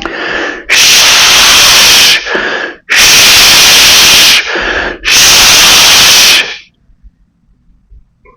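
Three forceful exhalations through the mouth in a yogic breathing exercise. Each is a loud rushing hiss lasting over a second and is preceded by a shorter, quieter breath in.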